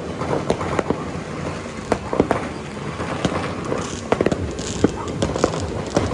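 New Year fireworks and firecrackers going off: many sharp bangs in quick, irregular succession over a continuous low rumble, with a crackling hiss about four seconds in.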